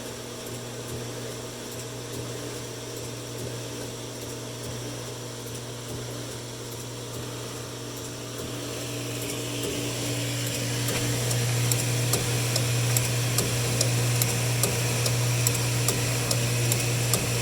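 Hot tub pump motor running with a steady hum; about nine seconds in it grows louder, and regular ticks, a few a second, come in over it for the rest of the time.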